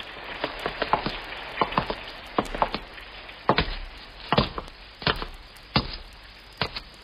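Footsteps going down steps, a radio-drama sound effect: sharp, hard knocks, uneven and doubled at first, then an even pace of about one step every 0.7 s, over a faint hiss.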